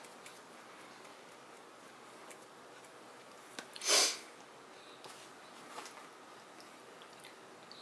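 Quiet room with a few faint small rustles and taps, and one short breathy hiss about four seconds in.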